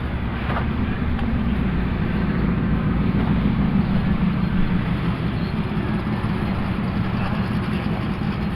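Vehicle driving along steadily, a constant low engine drone mixed with road noise.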